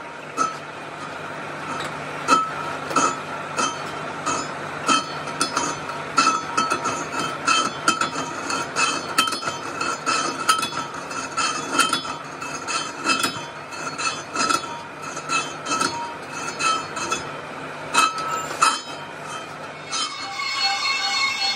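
Metal being struck or knocked again and again at an uneven pace, one to three clinks a second, each ringing with a high metallic tone. Near the end the clinking stops and a steadier sound with several held tones takes over.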